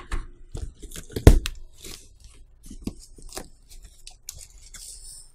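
Cardboard box being opened: packing tape tearing and cardboard flaps pulled apart, giving a string of crackles and scrapes with one loud knock about a second in.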